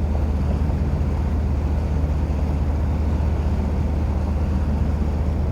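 Steady low drone of a lake cruise boat's engine, heard on board.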